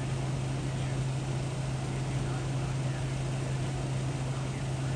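Steady low electrical hum under a constant hiss, unchanging throughout.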